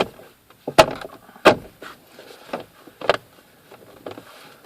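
Plastic steering column casing being pushed into place around the ignition barrel: a series of sharp plastic clicks and knocks as its clips are located and snapped home, the loudest two just under a second in and about a second and a half in.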